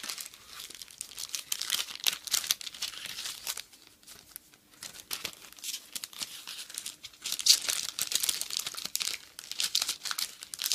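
Clear plastic packet crinkling in dense, irregular crackles as a paper letter set is handled and slid about inside it. There is a quieter stretch about four seconds in, then busier, louder crinkling in the second half.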